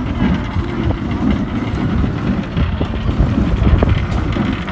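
Wind buffeting the microphone: a loud, uneven low rumble with a few faint clicks.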